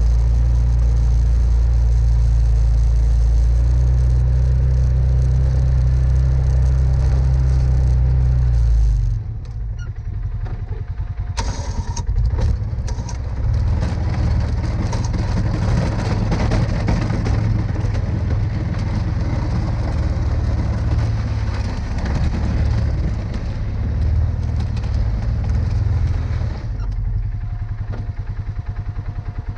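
Polaris Sportsman 570 ATV's single-cylinder engine running while the front plow blade pushes snow. It runs loud and steady for about the first nine seconds, then drops off and goes on at a lower, uneven level, rising and falling as the ATV drives on.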